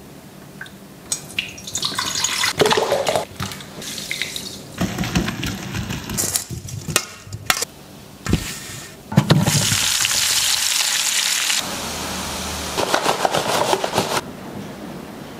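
Kitchen sounds on a metal baking tray: a run of knocks, clicks and scrapes, then stretches of steady hiss like hot oil sizzling.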